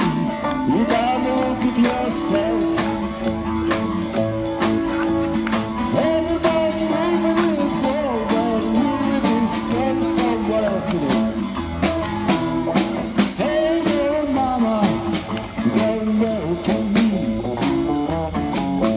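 A live rock-and-roll band playing: a male lead vocal over strummed acoustic guitar and electric guitars, with a small drum kit keeping a steady beat.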